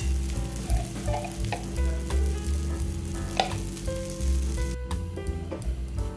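Ragi dosa batter sizzling on a hot griddle, with a couple of faint clicks.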